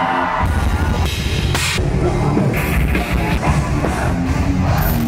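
Heavy rock music with a pounding drum kit and guitars, loud and continuous.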